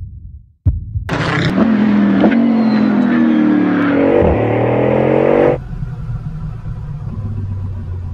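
Bugatti Bolide's quad-turbo W16 engine accelerating hard, its note climbing in pitch in steps as it shifts up. About five and a half seconds in it cuts abruptly to a lower, steadier engine note.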